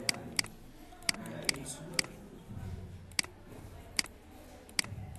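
Computer mouse clicking: about seven short, sharp clicks at uneven intervals, over a faint low room murmur.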